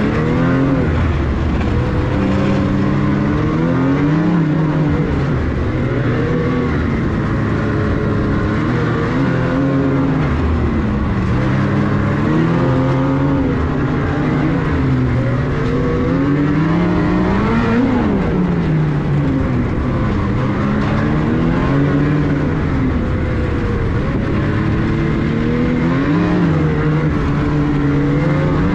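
Ski-Doo Renegade 850's two-stroke twin engine running under way, a new crate engine being broken in; its pitch rises and falls again and again as the throttle is worked, with one sharper rev a little past the middle.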